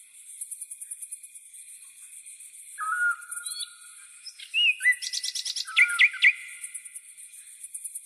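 Night chorus of crickets trilling steadily, with a high pulsing trill over a lower one. A bird gives a single whistled call about three seconds in, and a short burst of varied chirping bird song follows between about four and six seconds in; this burst is the loudest part.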